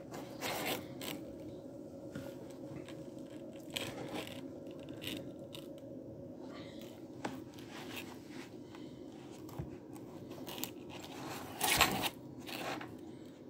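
Handling noise: scattered scrapes, rustles and light clicks from a hand holding and shifting a tablet in its foam-lined case, with a louder rustle near the end.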